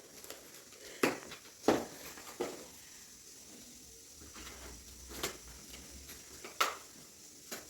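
Delivery packaging being unwrapped by hand: about five separate sharp clicks and taps, spaced irregularly, over quiet room tone.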